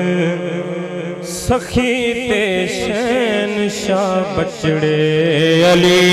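Man singing a devotional song into a microphone, holding a long, wavering line without clear words over a steady droning accompaniment. Sharp percussion strikes join about a second in.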